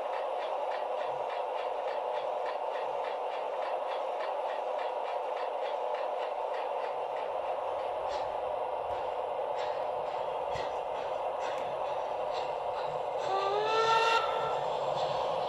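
O gauge model train running: a steady whirring hum with scattered light clicks, and a short rising horn-like tone near the end.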